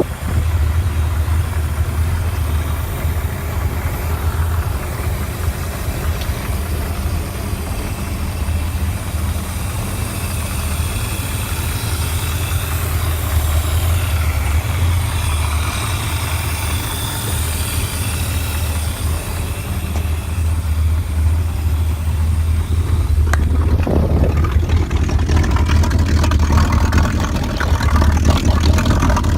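Engine of a 1969 28-foot cabin cruiser running steadily, a loud low drone.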